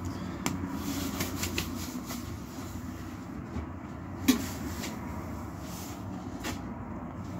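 Scattered light clicks and knocks from handling plastic seed cups, with one sharper knock about four seconds in, over a steady low rumble.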